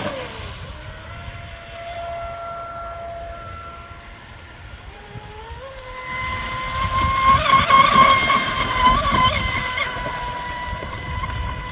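Pro Boat Sonic Wake RC speedboat's brushless electric motor whining as it runs on the water. The pitch falls at the start, holds low and steady, climbs about five seconds in, then holds louder and higher with some wavering as the throttle is worked.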